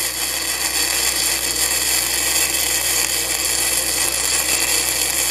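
YesWelder MIG welder running a gasless flux-core weld on eighth-inch steel: the arc gives a steady, unbroken hiss.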